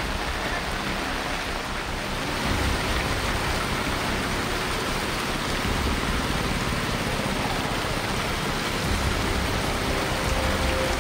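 Heavy rain pouring down onto a flooded street, a steady dense hiss, with a low rumble coming and going underneath.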